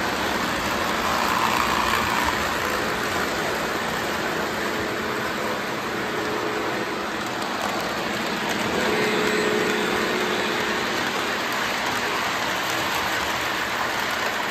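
Three-rail O-gauge model trains running on metal track: a steady, noisy rolling clatter of wheels and electric motors, with a faint steady tone for a few seconds in the middle.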